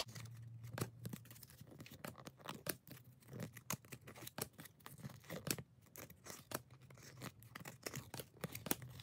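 A stack of 1993-94 Skybox Premium basketball trading cards flipped through by hand, one card slid off the front after another. Faint, irregular little clicks and scrapes of card stock rubbing against card stock, a few each second.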